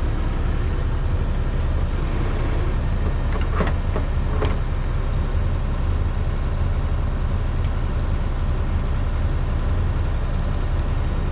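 A compact track loader's diesel engine idles steadily. Over it, a laser-level receiver on a grade rod gives a couple of clicks, then starts beeping fast about four seconds in. The beeping turns into a steady high tone at times, the receiver's signal that it sits on the laser's grade line.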